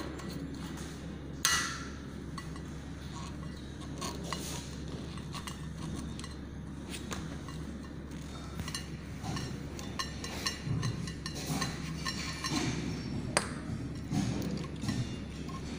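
Small clicks, taps and clinks of metal and glass parts being handled as an air compressor's regulator and glass filter bowl are taken apart, with a few sharper clicks, over a steady low hum.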